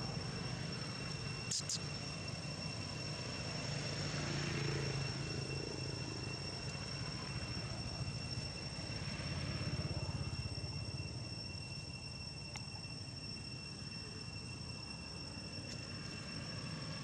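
Insects droning steadily at a high pitch, over a low rumble, with a brief click about a second and a half in.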